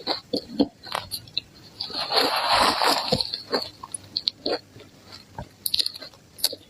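Close-miked crunching and chewing of ice cubes dusted with matcha powder: scattered sharp cracks and crunches, with a louder, denser stretch of over a second about two seconds in.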